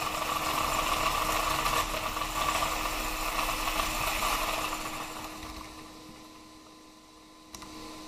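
Electric wheel motors of an independently wheel-driven 1/10 scale RC car spinning up under throttle with steering applied, whirring steadily for about four seconds and then winding down, leaving a faint steady hum.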